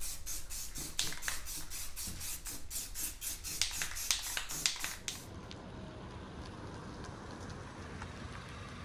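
Aerosol spray can of clear coat being shaken, its mixing ball rattling in a fast even run of about four sharp clicks a second. About five seconds in it stops abruptly, leaving a quieter steady low background.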